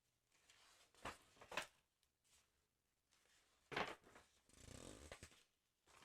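Close-miked paper handling of a sticker album: a few short, crisp paper sounds, then a brief rustle near the end.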